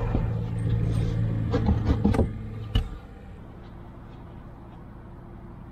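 Wooden access panel of a van's bed platform being knocked and shifted by hand as it is worked loose. There is a cluster of sharp wooden knocks about one and a half to two seconds in and one more near three seconds, over a steady low rumble that drops away at that point.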